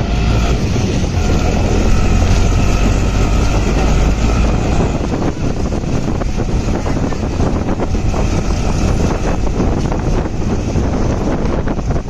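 Heavy downpour: a dense, steady hiss of rain, with wind rumbling on the microphone.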